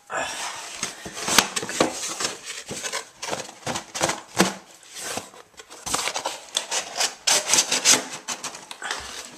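Cardboard box being handled and worked at: irregular rubbing and scraping with scattered sharp knocks, as a tight-fitting inner accessory box is struggled free of it.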